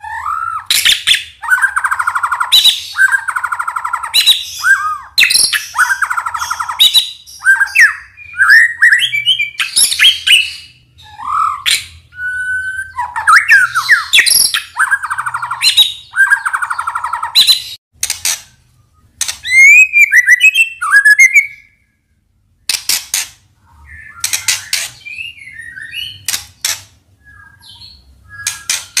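White-rumped shama (murai batu) singing a loud, varied song: repeated harsh rattling phrases alternating with whistled glides and chirps, with a short silence about three-quarters of the way through.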